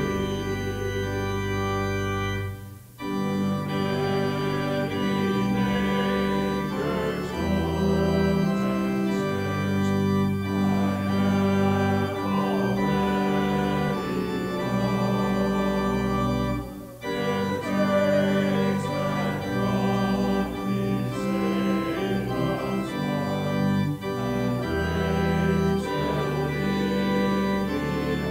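Church organ playing slow, sustained chords that change every second or two, in phrases, with brief breaks about three seconds in and again around seventeen seconds.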